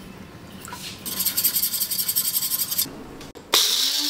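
Curd being beaten by hand in a steel bowl: quick, rhythmic scraping strokes. About three and a half seconds in, a small Nutri-blend mixer grinder starts grinding spices and water in a short burst, and its motor pitch begins to fall as it winds down.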